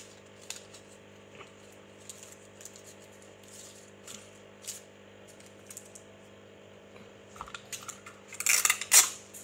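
Paper and sticky tape being handled: scattered small rustles and clicks, with a denser stretch of crinkling and tapping near the end.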